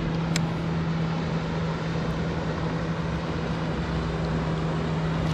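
A motor hums steadily at one unchanging low pitch over an even rush of noise, with a single sharp click about half a second in.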